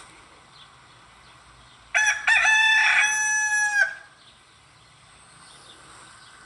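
A rooster crowing once: a cock-a-doodle-doo of about two seconds, broken at the start and ending in a long held note, over a faint hiss.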